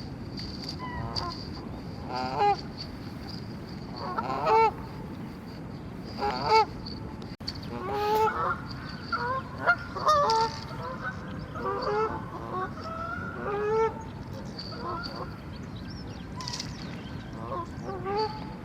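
Geese honking: a few separate calls, then a quick run of many overlapping honks in the middle, then a few more calls.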